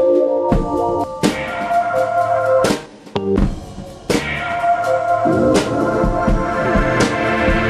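Background music with a drum kit beat under sustained melodic notes, dropping away briefly about three seconds in.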